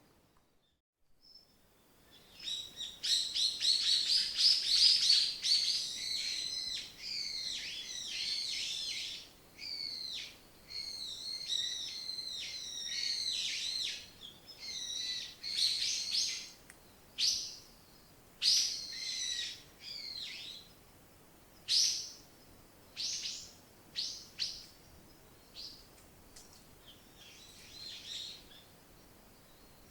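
Songbirds singing: after a brief silence, a dense stretch of rapid, high chirps and trills, thinning in the second half to separate short calls.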